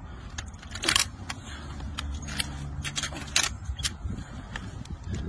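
Sharp metallic clicks and clacks of an M240 machine gun being handled during a dry-fire drill, with two louder clacks about a second in and near the middle. A steady low rumble runs underneath.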